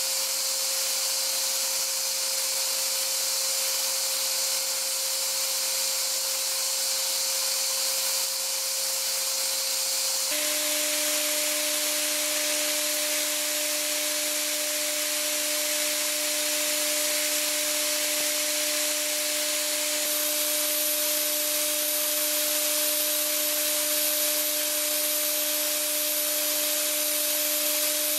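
High-speed built-in spindle of a Hwacheon SIRIUS-UL+ vertical machining center milling hardened SKD11 tool steel (HRC58) with a small ball end mill: a steady hiss of the nozzle's blast over a steady whining tone. The tone changes pitch about ten seconds in, with the change of cutting pass, and a high whine joins about twenty seconds in.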